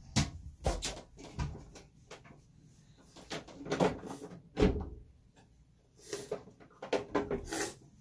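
Scattered knocks and clatter of household objects being handled while a makeup item is fetched, with the loudest knock just past the middle.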